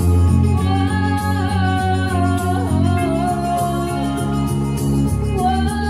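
Amplified song: a singer's high, held and gliding melody over a backing track with a pulsing chord-and-bass beat.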